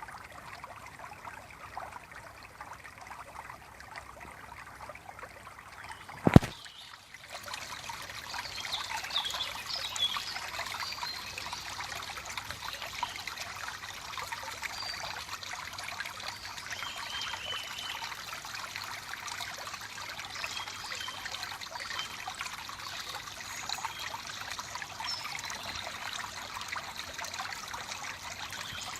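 Small woodland stream babbling and trickling over rocks, a steady splashing rush of water. One sharp knock about six seconds in, after which the water sounds louder and brighter.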